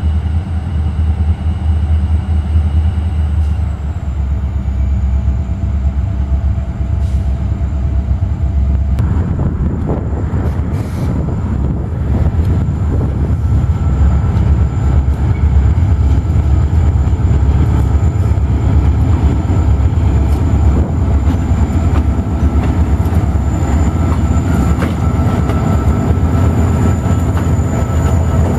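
Freight train led by a group of diesel locomotives, MEC 310 in front, passing with a steady low diesel engine rumble. From about nine seconds in, the sound gets louder and rougher as the locomotives and cars roll past close by.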